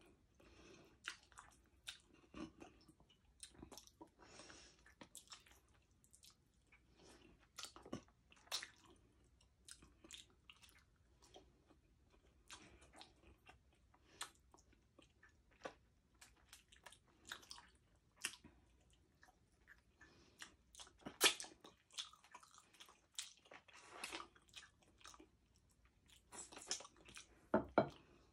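Close-miked chewing and crunching of crispy deep-fried pork knuckle skin (crispy pata), with irregular crisp crunches and wet mouth sounds throughout. The loudest crunches come about 21 seconds in and again near the end.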